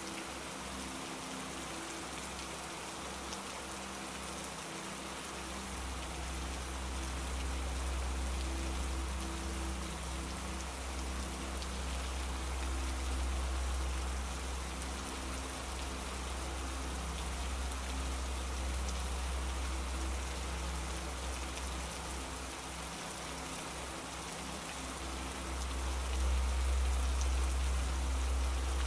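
Steady rain, an even hiss, with a low rumble underneath that swells about six seconds in and again near the end.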